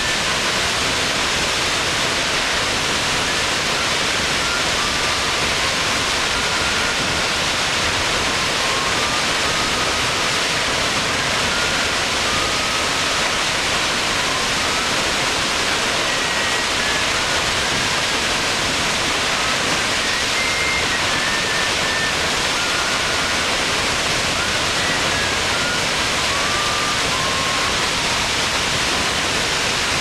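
Large waterfall's steady rush of falling water, heard close to the falls as an even, unbroken wash of noise.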